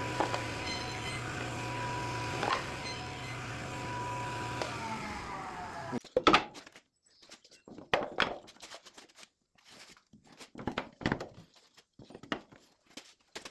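A woodworking power tool's motor running with a steady whine, then winding down in pitch near the halfway point before it stops. Scattered knocks and taps follow.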